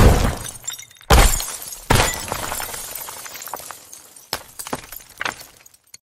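Wine glass shattering on asphalt. A rush of noise fades over the first second, then comes a loud crash about a second in and a second smash soon after. Scattered tinkles of glass shards follow and die away.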